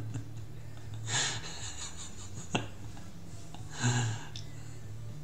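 Two short breaths out close to the microphone, about a second in and again near four seconds, with a single sharp click between them, over a low steady hum.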